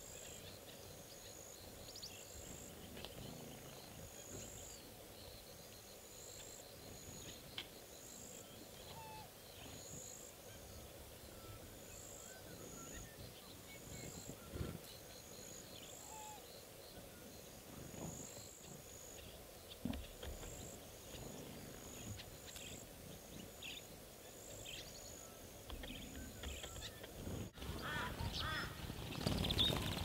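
Faint outdoor ambience of a high-pitched pulsing call, about one pulse a second, with scattered faint chirps of small birds. Near the end it cuts to louder twittering of small birds.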